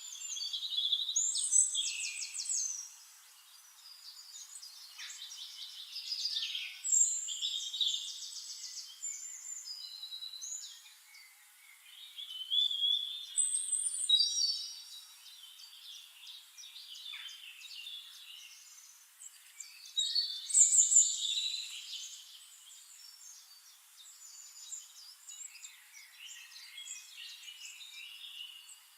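Several songbirds singing and chirping together in a dense chorus of high trills and whistles, with louder bursts of song every few seconds.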